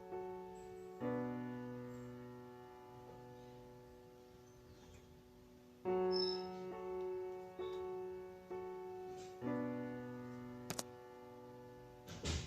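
Gentle background piano music, held chords changing every few seconds, with a couple of faint clicks near the end.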